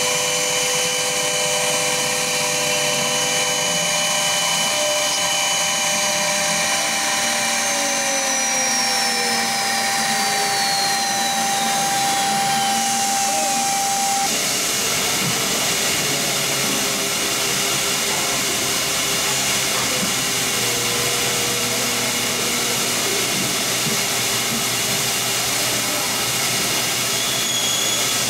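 Three-axis CNC router with an air-cooled spindle cutting letters into a wooden board: a steady high-speed spindle whine over cutting noise. Some tones glide down in pitch, and the mix of tones changes abruptly about halfway through.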